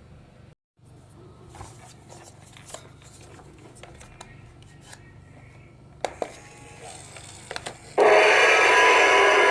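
Quiet handling clicks, then an alarm clock's gong ringing loudly as the striker hammers it. The ringing starts suddenly about eight seconds in and runs on past the end.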